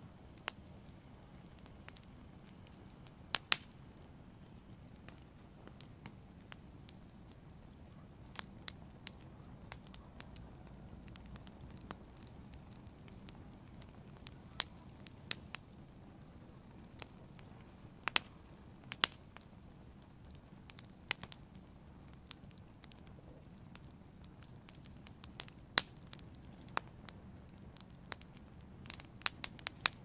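Wood fire burning in a fireplace: a steady low rush of flame under irregular sharp crackles and pops from the burning logs, with a few louder snaps scattered through.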